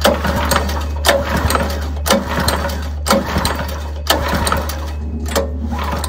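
A Harbor Freight water pump, just freed from seizing with rust, running with a steady low hum and a clatter that comes back about once a second.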